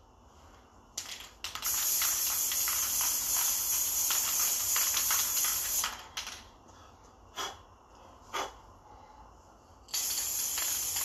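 Aerosol spray can of primer spraying. Two short spurts come first, then a steady hiss for about four seconds, three more short spurts, and another steady hiss starting near the end.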